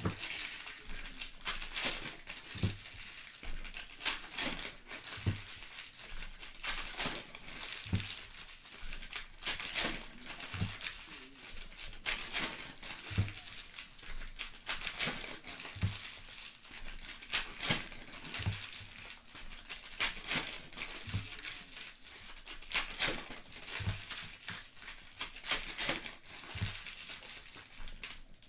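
Panini Prizm basketball trading-card pack wrappers being torn open and crinkled by hand, one pack after another, with constant crackling. A soft low thump comes about every two and a half seconds.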